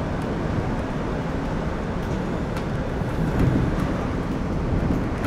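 Suspended monorail car running on rubber tyres inside its overhead track beam, giving a steady rumble and hiss as heard inside the driver's cab.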